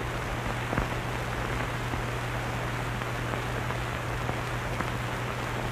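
Steady hiss with a low hum from an old film soundtrack, and a faint click about a second in.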